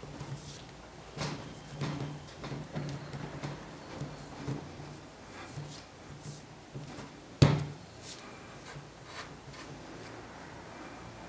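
Handling knocks and taps as epoxy putty is pressed into an aluminium can ring sitting on an acrylic sheet, with one sharper, louder knock about two-thirds of the way through.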